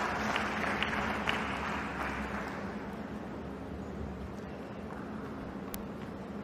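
Spectators applauding a won point, the clapping dying away over the first few seconds and leaving the steady low background of the venue.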